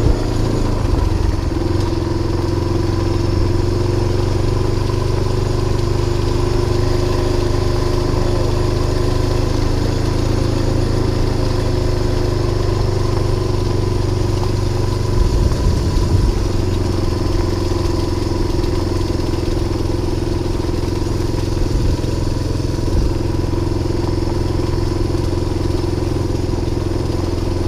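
A loud, steady engine hum at an unchanging pitch, with a few brief knocks about halfway through.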